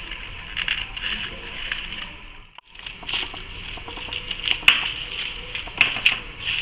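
Paper cupcake liners crinkling and rustling as they are pressed one by one into a metal muffin pan, with irregular light clicks and taps. The sound drops out briefly about two and a half seconds in.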